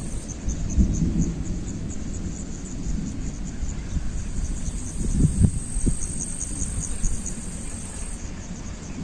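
Wind gusting against the microphone as a low, uneven rumble, strongest about five seconds in. Over it, insects chirp steadily in a fast, high-pitched pulse.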